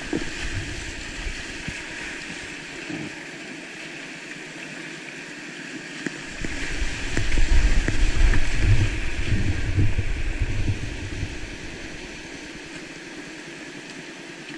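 Whitewater rushing in a steep creek rapid, heard from on board a kayak running it, with paddle splashes. The rush swells louder and deeper for several seconds in the middle as the boat drops through the whitewater, then settles back to a steadier flow.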